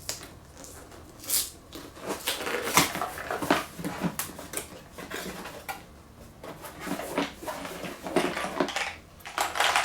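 A Dremel rotary tool kit being unpacked: the box and its packaging are handled with rustling, along with irregular clicks and clatter of small hard accessory pieces.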